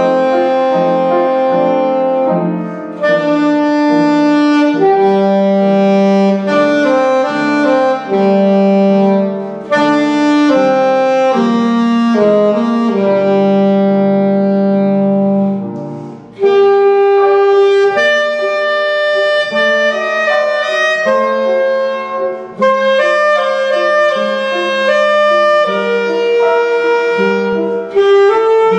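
Alto saxophone playing a slow, lyrical melody in held and moving notes, accompanied by upright piano. The phrase breaks off for a brief breath pause about sixteen seconds in, then the melody carries on.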